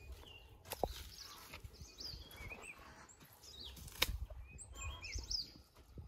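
A hand hoe chopping into dry soil, with a knock about a second in and a louder one about four seconds in. Birds chirp between the strokes.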